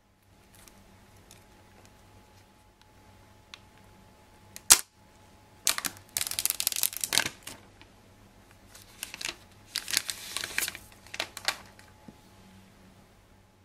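Clear plastic shrink wrap being torn and peeled off a cardboard phone box. A sharp snap about five seconds in is followed by two stretches of crinkling.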